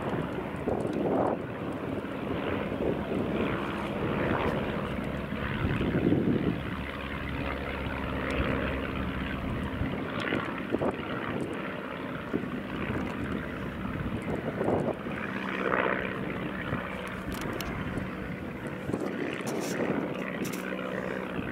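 De Havilland Tiger Moth biplanes' four-cylinder Gipsy Major piston engines droning steadily in flight, swelling and fading a little as the aircraft pass.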